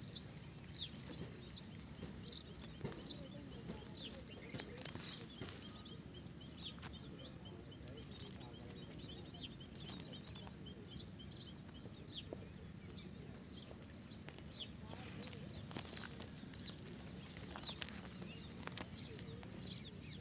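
Small birds chirping, with many short, high down-slurred chirps scattered irregularly over a faint, thin high-pitched insect-like trill and a low background hum.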